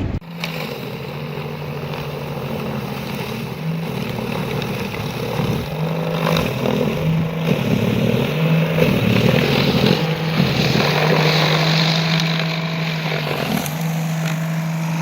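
A blower clearing snow: its motor runs at one steady pitch with an airy rush that grows louder through the middle.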